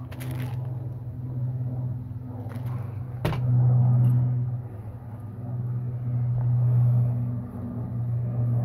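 Low-flying plane droning overhead: a steady low hum that swells and eases in loudness, loudest around four and seven seconds in. A single sharp tap about three seconds in.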